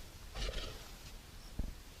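A short rustling hiss about half a second in, then a single dull thump near the end.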